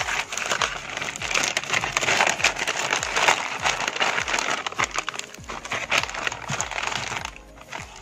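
White plastic courier mailer bag being torn open and crinkled in the hands, with the inner packaging handled; the crinkling stops about seven seconds in. Background music plays underneath.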